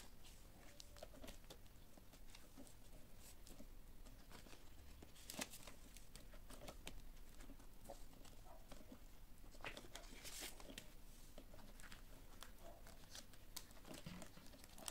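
Faint rustling and crinkling of paper banknotes and clear plastic binder sleeves being handled and flipped, with scattered light clicks. There is one sharper click about five seconds in and a brief flurry of rustling around the ten-second mark.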